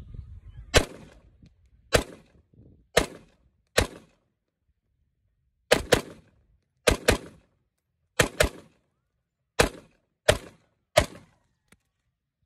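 AR pistol with a 10-inch 5.56 barrel firing steel-case .223 ammunition semi-automatically: a string of about thirteen shots at an uneven pace, several in quick pairs.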